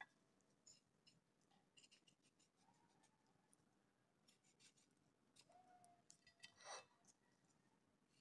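Near silence, with a few faint clicks and taps of a knife cutting a tomato on a cutting board; the slightly firmer tap comes about two-thirds of the way through.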